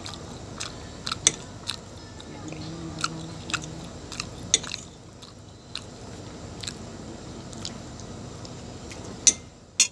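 Knife and fork clicking and scraping on a ceramic plate as a piece of pizza is cut, with chewing between the sharp clinks.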